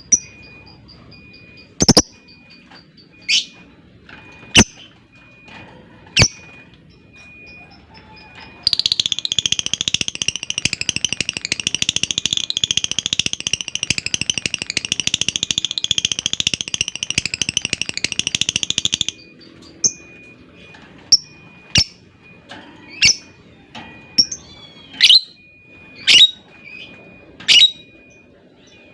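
Lovebird calling: sharp single chirps, then a long, fast, rattling chatter ('ngekek panjang') of about ten seconds that stops abruptly, then more sharp chirps.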